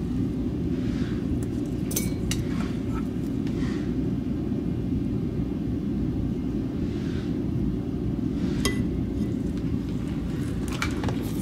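Steady low rumble of a fume extractor fan, with a few light metallic clinks of soldering tools being handled: two about two seconds in, one near nine seconds and a couple near the end.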